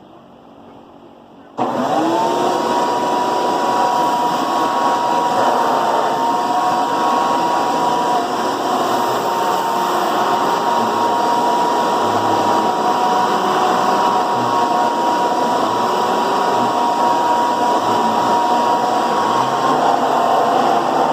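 Hoover vacuum cleaner switched on about a second and a half in, its motor quickly spinning up to a steady high whine and then running steadily.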